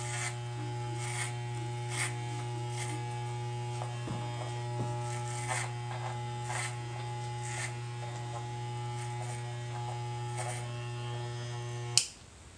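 Corded electric hair clipper with a guard buzzing steadily as it cuts short hair, with repeated short rasping strokes as it is run up through the hair. It switches off with a click near the end.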